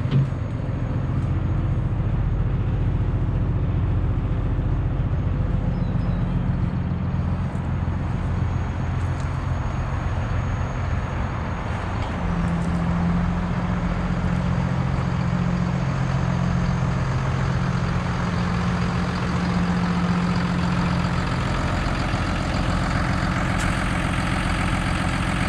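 The diesel engine of a Hino 268 box truck idling steadily, a Hino J08E inline-six.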